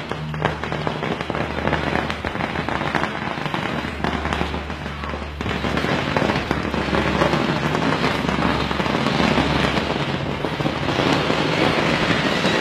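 A long chain of red firecrackers going off in a fast, continuous crackle of small bangs, growing louder about five seconds in.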